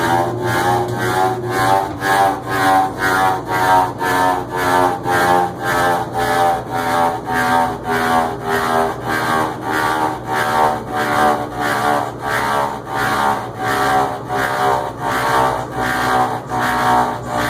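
GE washing machine running with a steady motor hum and an even, rhythmic rubbing pulse about two times a second, from a machine that its owner calls faulty even after several parts were replaced.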